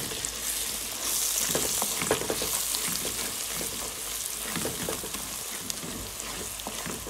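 Sliced onions and ground spices (turmeric, chilli and coriander powder) sizzling in hot oil in a metal pan while a wooden spatula stirs and scrapes them, frying the masala. The sizzle swells about a second in.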